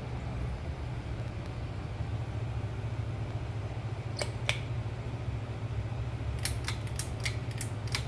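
Ceiling fan pull-chain switch clicking: two clicks about four seconds in, then a quick run of clicks near the end, over a steady low hum.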